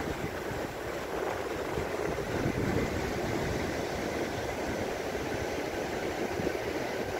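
Wind blowing across the microphone: a steady rushing and buffeting noise, heaviest in the low range, with no distinct events.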